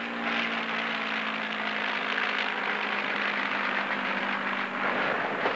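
Spitfire fighter's engine droning as it flies past, its pitch slowly falling and fading near the end, over the steady rushing noise of a moving steam train.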